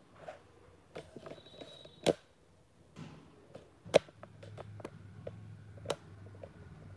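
Camera handling noise: a few sharp knocks and clicks, the loudest about four seconds in, with smaller ticks between them, over a faint low hum.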